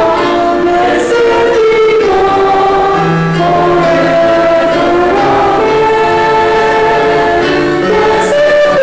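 Choir singing in harmony through face masks, several voice parts holding long notes that move together from chord to chord, with sung 's' sounds about a second in and near the end.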